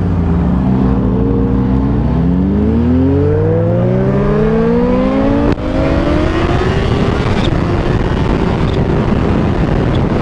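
Kawasaki Ninja H2's supercharged inline-four engine accelerating hard, its pitch rising steadily, with a sharp click and a drop in pitch about five and a half seconds in as it shifts up, then climbing again. In the last few seconds the engine fades under steady wind and road noise.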